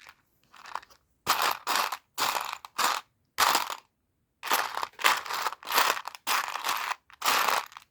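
Hands rummaging through loose plastic Lego Technic pieces, a crunching rustle in short repeated bursts, while searching for a pin.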